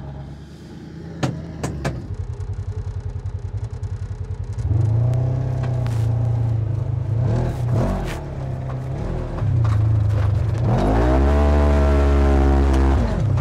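A vehicle engine runs with a fast, even pulse, with a couple of knocks early on. From about five seconds in it runs louder, and near the end its pitch rises and falls as it revs up and eases off.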